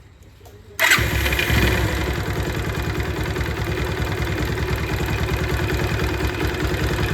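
Bajaj Pulsar 220's single-cylinder engine started on the electric starter about a second in: a short crank, then it catches and idles steadily with an even beat. No cracking or clattering from the starter one-way clutch, which has just been repaired and is now running clean.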